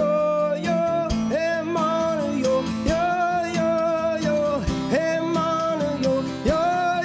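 Live instrumental music led by guitar, its notes sliding up into long held tones over a steady low drone, with regular percussive strikes.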